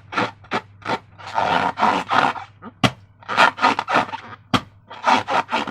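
Slime being squeezed and squished by hand: a run of short wet squelches, two or three a second, with a few sharp sticky clicks among them.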